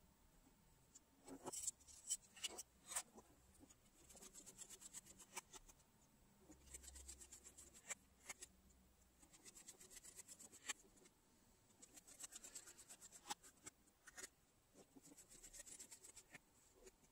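Precision screwdriver turning tiny screws out of a Feiyutech WG2 gimbal's plastic housing: faint scratchy ticking in several bursts, after a few sharp clicks about two seconds in.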